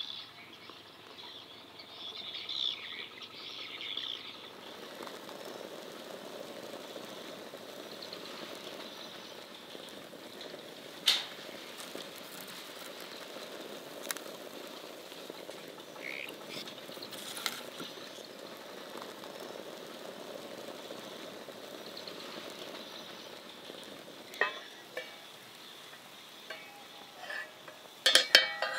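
Food frying in a pan, a steady sizzle, with a few sharp clinks of a utensil against the pan and a short clatter near the end.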